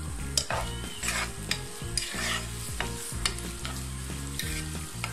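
Sliced onions sizzling in hot oil in a pot while being stirred with a spatula: short scraping strokes and clicks recur every second or so over the frying hiss.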